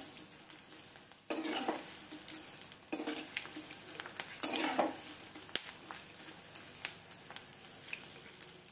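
Edible gum (gond) deep-frying in ghee in an aluminium kadhai on low flame: a steady sizzle with many scattered crackling pops as the gum pieces puff up. The crackling is the sign the gum is still frying; it is done once the crackling stops.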